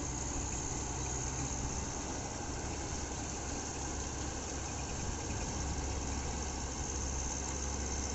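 Rice combine harvester running steadily while harvesting, its engine and threshing machinery making a constant mechanical drone with a low rumble.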